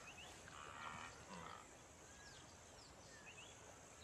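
Faint grunting calls of a wildebeest herd at the water, a few short calls close together about a second in.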